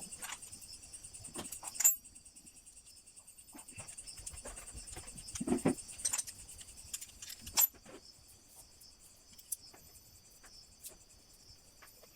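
Crickets chirping steadily in a high, fast-pulsing trill, with a few sharp clicks and knocks, the loudest about two, five and a half and seven and a half seconds in.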